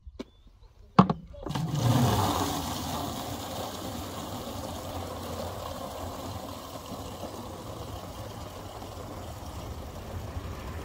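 Water from a tap running through a short pipe into a large plastic bottle, a steady rushing gurgle as the bottle fills. A single knock comes about a second in, just before the water starts.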